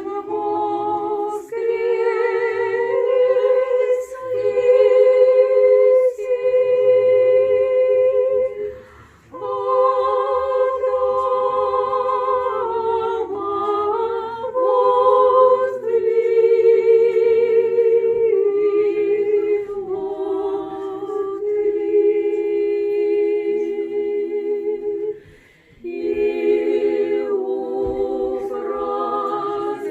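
Orthodox church choir singing liturgical chant a cappella, in long held phrases with a slight waver in the voices. The singing breaks off briefly twice, about a third of the way in and near the end, between phrases.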